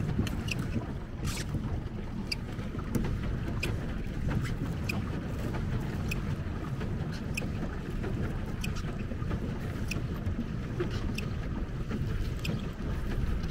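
A plastic pedal boat moving across a lake: steady wind rumble on the microphone and water sloshing against the hull. Light, sharp ticks come at irregular intervals, roughly one a second.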